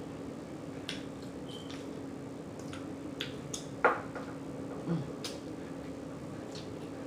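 Close-up eating sounds: chewing with scattered wet mouth clicks and smacks, one louder smack about four seconds in, over a steady low hum.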